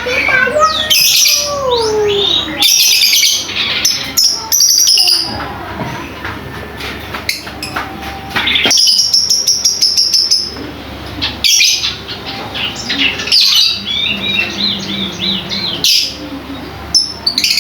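Lovebird chattering in rapid, shrill chirps and short trills, with sharp clicks between the phrases.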